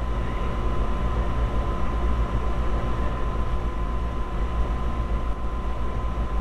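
Steady background hum and hiss with a strong low rumble and a constant thin high tone, unchanging throughout.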